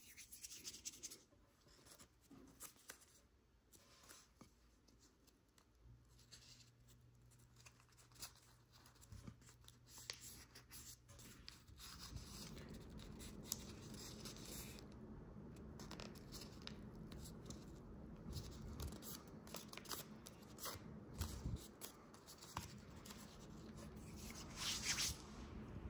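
Origami paper being folded and creased by hand: faint, irregular crinkles and rustles of paper, with a louder rustle near the end.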